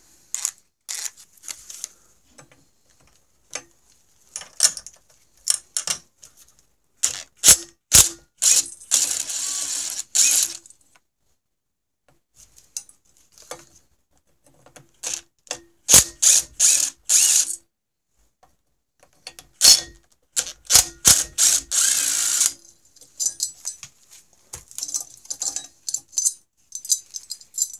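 Cordless DeWalt impact driver hammering in a series of short bursts, backing out the bolts that hold the pulley on a snowmobile engine's flywheel.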